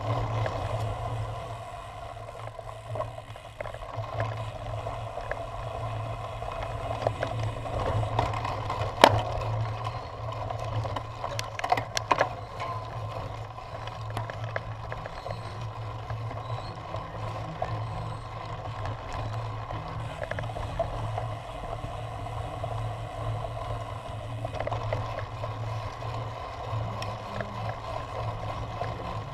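Cyclocross bike rolling fast over a bumpy grass and dirt course, a steady rumble of tyres and frame vibration, with sharp rattling knocks over bumps about nine and twelve seconds in.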